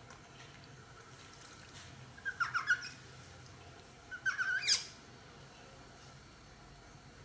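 Baby monkey squealing in two short bursts about two seconds apart, each a quick run of high squeaky cries, while being washed.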